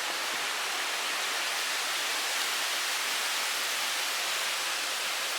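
Steady, even hiss of storm rain and wind from a tropical storm's outer bands, with no gusts or buffeting on the microphone.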